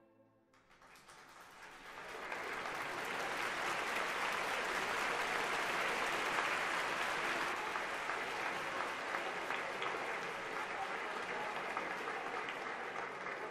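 Audience applauding: the clapping swells in over the first two seconds and then holds steady.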